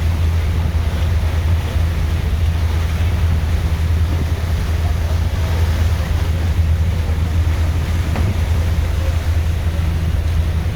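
Boat engine running steadily with an even low drone, mixed with wind buffeting the microphone and the rush of water.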